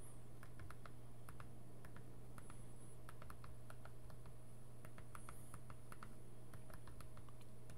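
Computer keyboard typing: an uneven run of short key clicks, several a second, over a steady low hum.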